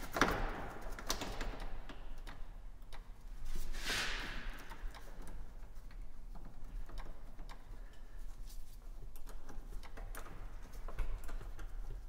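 Light, irregular clicks and taps of hand tools and parts being handled and fitted in a truck's engine bay, with a brief rustle near the start and another about four seconds in, over a faint steady low hum.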